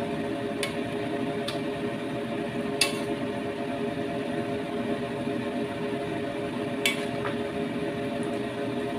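A metal ladle clinking against a stainless steel wok about five times while stirring noodles in boiling water, the loudest clinks about three and seven seconds in, over a steady hum.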